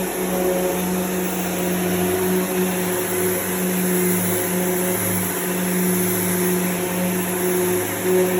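Dual-action (DA) orbital sander running steadily with a constant hum, sanding guide-coated primer surfacer on a car body panel.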